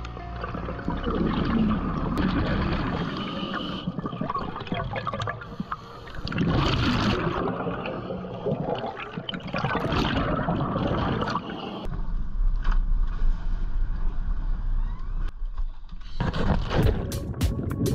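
Water gurgling and bubbling in uneven swells, with louder surges about six and a half and ten seconds in. A steady low hum joins it in the second half, and a run of quick, evenly spaced sharp clicks starts near the end.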